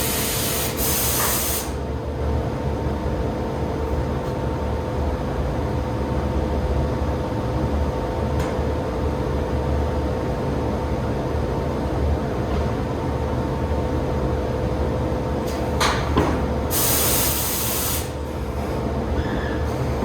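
Biesse Brema EKO 2.1 vertical CNC machining centre running, a steady low hum under a constant whine. Two loud hisses break in, one at the very start and one about three-quarters of the way through.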